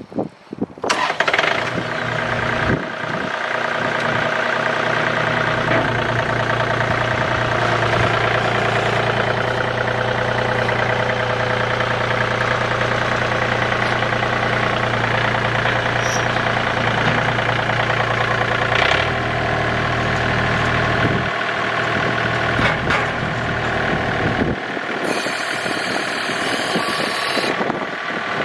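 John Deere 2032R compact tractor's three-cylinder diesel engine starting and then idling steadily; its low note drops away about twenty seconds in.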